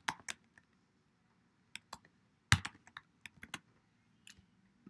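Typing on a computer keyboard. A few keystrokes come at the start, then a pause of about a second, then a run of quick keystrokes with a pause between groups.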